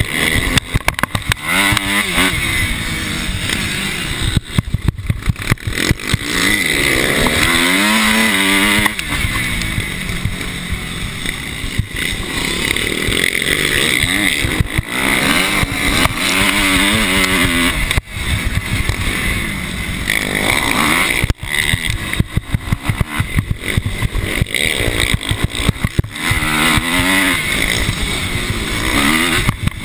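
Motocross bike engine heard from on board, revving hard up and down as the rider works through the gears. The pitch rises and falls again and again, with short throttle cuts between.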